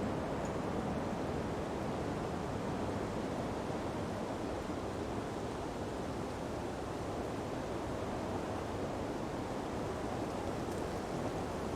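Ocean breeze blowing softly through palm trees with beach surf, an even, steady hiss without gusts or breaking swells.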